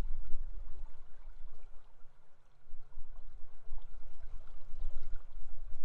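Rushing water of the Brooks River, a continuous noisy rush with a heavy low rumble, dipping briefly about two seconds in.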